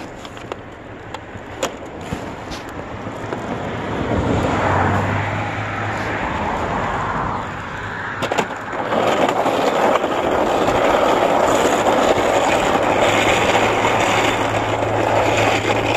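Small plastic wheels of an upright vacuum cleaner rolling over rough asphalt, a steady gritty rolling noise that builds over the first few seconds, dips briefly about halfway, then carries on loud.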